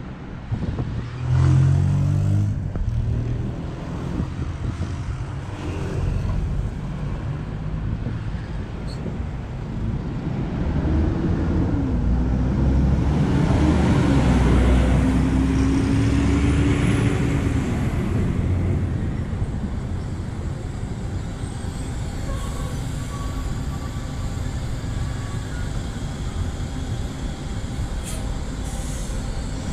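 City bus diesel engines at a kerbside stop, over steady traffic noise. A sudden louder rumble comes about a second and a half in. Halfway through, a bus pulls away close by, its engine note rising and loudest for several seconds.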